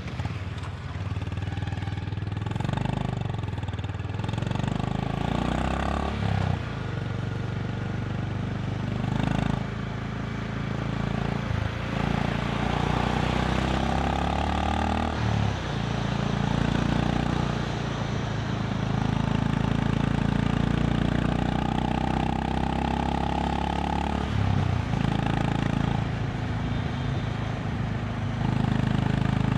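Honda CB350 RS air-cooled single-cylinder engine pulling through the gears under the rider's POV mic, its pitch rising under acceleration and dropping at each upshift, several times, then holding a steadier note at cruise, with wind rush.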